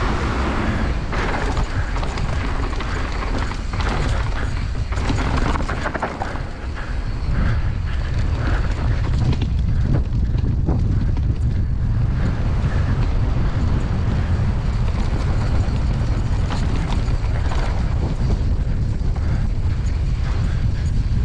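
Wind buffeting the microphone during a fast mountain-bike descent, with tyres running over dirt and the bike rattling and knocking over rough ground. The knocks come thickest in the first half, and the wind rumble runs strong and steady after that.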